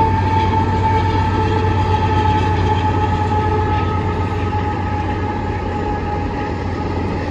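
Freight train rolling past with its mid-train distributed-power unit, a CP AC4400CWM diesel-electric locomotive, running among the loaded grain hopper cars: a steady low engine hum under wheel-and-rail noise, with a sustained high tone that sinks slightly in pitch. The sound slowly gets quieter as the locomotive moves on.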